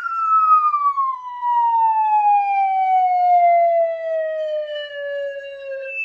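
Falling whistle sound effect: one long whistle sliding steadily down in pitch, the classic cartoon sound of something dropping from a height.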